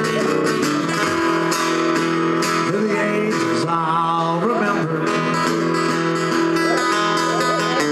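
Guitar playing a slow country ballad, chords plucked and strummed with a few bent notes.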